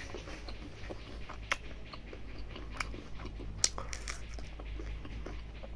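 Close-up eating sounds of mithun skin curry and rice eaten by hand: steady chewing and wet mouth noises, broken by a few sharp, crunchy bites, including a bite into a fresh red king chilli.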